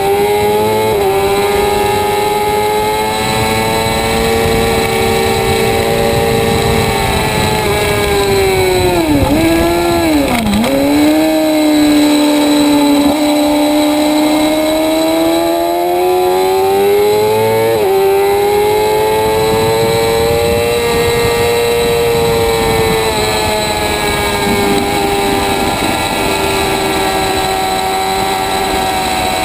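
Motorcycle engine at high revs lapping a racetrack. It holds a high pitch, drops sharply through downshifts about nine to ten seconds in, pulls back up, and shifts up about eighteen seconds in.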